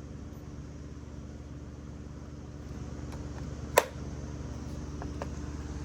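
Electric fan running with a steady hum and whoosh, and a single sharp click about four seconds in.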